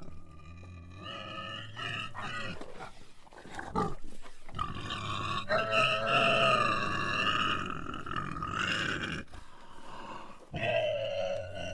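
Pig grunting: several short calls in the first few seconds, then one long drawn-out call of about three seconds, and another call starting near the end.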